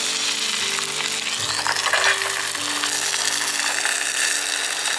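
A fried egg sizzling in hot oil in a pan, a loud steady sizzle.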